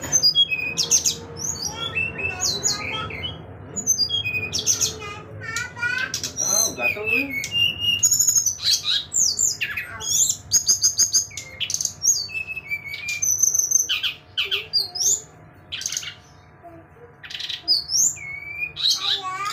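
Caged brown-chested jungle flycatcher (SRDC) singing loudly and nonstop: a fast, varied string of clear whistles, rapid trills and chirps, its learned repertoire ('materi') of song phrases.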